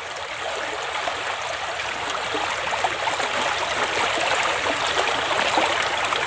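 Shallow muddy stream flowing and rippling: a steady rush of running water that grows a little louder.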